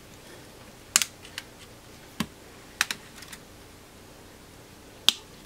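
Irregular sharp clicks and taps of small repair tools and the phone's frame being handled against a workbench, about eight in all, the loudest about a second in and near the end.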